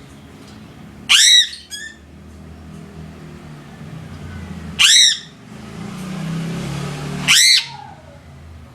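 A crow cawing: three loud, harsh caws spaced a few seconds apart, the first followed by a weaker short note. A low rumble in the background swells between the second and third caw.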